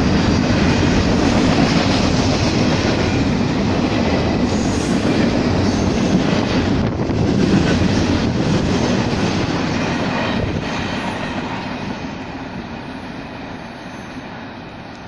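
Freight train cars rolling past on the rails, a loud steady rumble from the wheels on the track. From about ten seconds in it fades steadily as the end of the train draws away.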